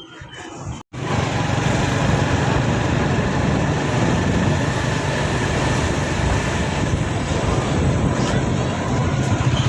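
Steady engine and road noise from a moving vehicle, with a continuous low engine drone. It starts abruptly about a second in.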